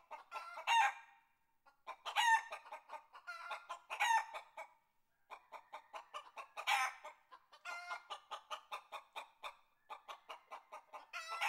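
A chicken clucking: runs of quick, soft clucks broken by five louder squawks.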